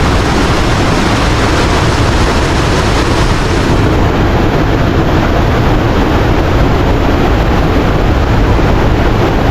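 Steady, loud roar of water rushing over the Khone Phapheng falls on the Mekong River.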